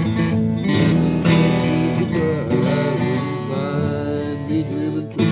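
Acoustic guitar strummed in a steady rhythm, with a wavering melody line over the chords from about two seconds in.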